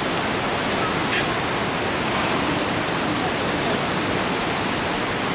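Steady, unbroken rush of water.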